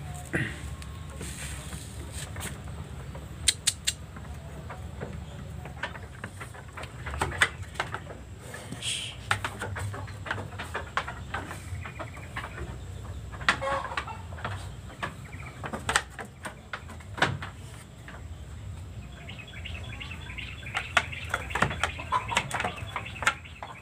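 Farmyard background: birds chirping and chickens, over a steady low rumble, with short sharp clicks and knocks scattered throughout and a denser run of clicks near the end.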